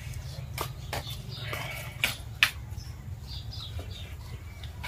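Metal spoons clinking a few times against steel plates while people eat, over a low steady background hum.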